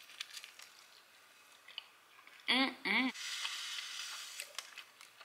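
Eating a toasted breakfast wrap: soft bites and chewing with faint crunchy clicks, then two short closed-mouth "mm" hums of enjoyment about two and a half seconds in, followed by a soft crackling hiss.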